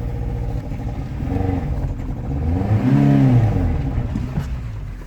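Off-road vehicle's engine revving: its pitch rises and falls twice, with the bigger rev peaking about three seconds in, then settles back to idle.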